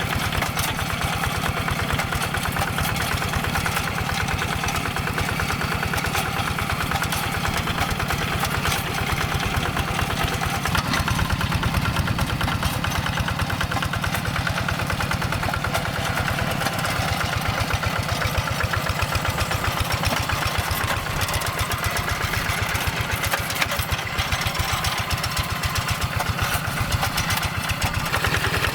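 Hand tractor's engine running steadily with an even, rapid chugging as it works under load plowing a rice paddy.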